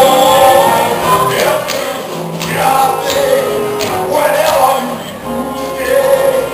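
Musical theatre cast singing together as a group, with backing music.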